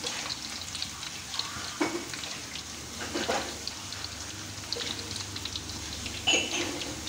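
Batter-coated mung bean crackers (rempeyek) deep-frying in hot oil in an aluminium wok: a steady crackling sizzle as the batter cooks. A metal spatula scrapes in the wok a few times, loudest about two, three and six seconds in.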